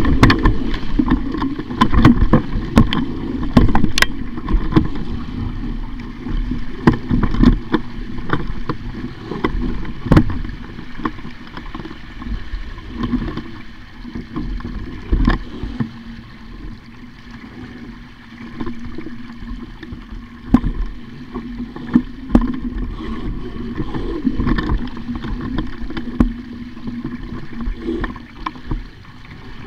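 A small boat on the water: water splashing against the hull and wind buffeting the microphone, over a steady low hum. Frequent irregular knocks and clatters come through, busiest in the first third and fewer later on.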